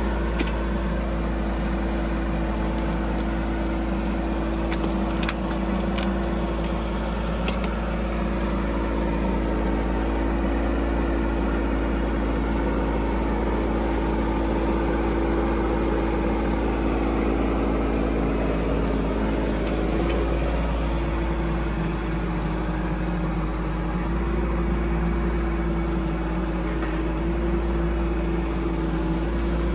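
Bobcat mini excavator's diesel engine running steadily as the machine tracks forward, with a few light clicks about five to eight seconds in and small shifts in engine pitch about twenty seconds in.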